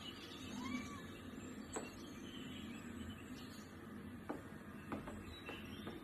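A Siamese cat gives one short meow about a second in; a few sharp ticks follow later.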